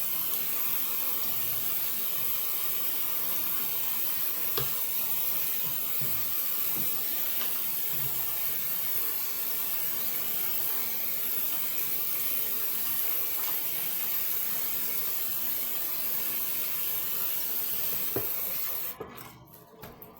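Water tap running steadily into a bathroom sink, shut off about 19 seconds in, leaving a few drips and small clicks.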